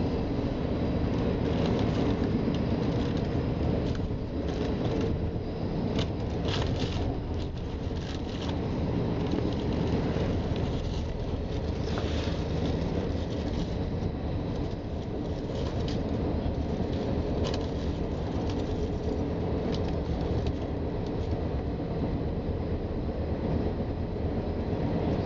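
Ferrovie Nord commuter train running at speed, heard from inside the carriage: a steady rumble of wheels on the rails, with a few light clicks and rattles about a third of the way in.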